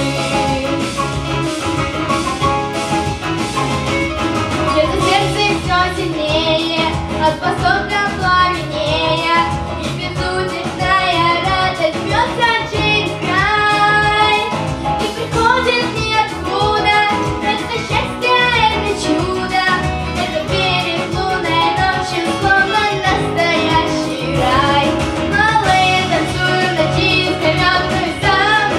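Violin playing a samba melody with slides and vibrato over a backing track with a steady beat.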